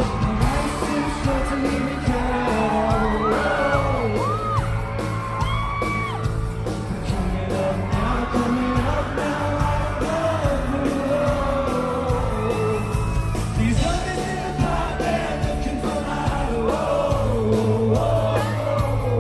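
Live concert music: a singer over the band, with the crowd yelling and whooping along.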